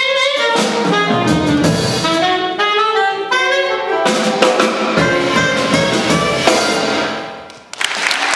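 Live jazz quartet with saxophone leading over piano, double bass and drums, playing the closing phrases of the tune, which die away about seven seconds in. Audience applause breaks out just before the end.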